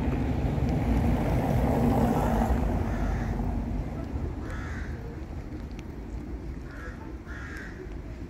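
A crow cawing four times in short single calls, the last two close together. Under it is a low rumble that swells in the first two seconds and then fades.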